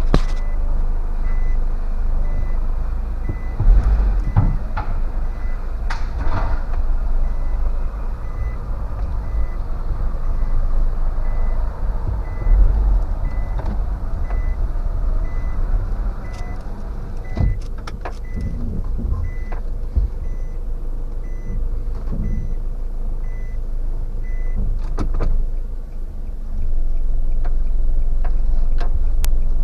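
Nissan Serena running on a test after its cylinder-3 misfire repair: steady engine and road rumble with a few knocks. Short high beeps repeat at an even pace for most of the first two-thirds, and the rumble grows louder near the end.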